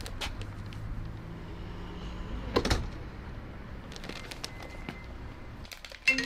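Street ambience with a steady low traffic rumble and scattered light clicks, one louder clatter about two and a half seconds in. Right at the end a smartphone ringtone sounds its first marimba-like note.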